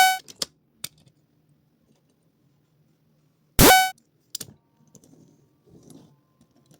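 A short sound effect that swoops quickly up in pitch and ends on a brief ringing tone, heard twice about three and a half seconds apart, with a few faint clicks in between.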